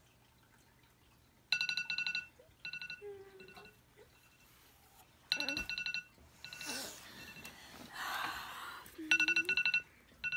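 Smartphone alarm ringing in repeated short bursts of rapid beeping, starting about a second and a half in and coming back several times. Between the bursts there is rustling of bedding as the sleeper stirs.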